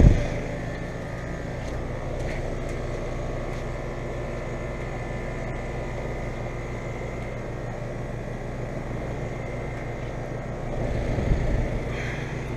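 Trane XR14 central air conditioner condenser running: a steady electrical hum under a constant whirring rush with a thin high tone over it. About eleven seconds in, a louder rush swells briefly.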